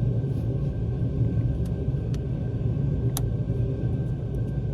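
A few light, sharp clicks from handling a plastic electrical connector under the dash, over a steady low background hum.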